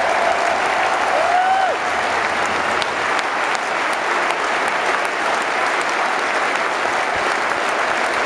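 Large football-stadium crowd applauding and cheering steadily, a dense unbroken wash of clapping, with a short rising-and-falling call standing out about a second in.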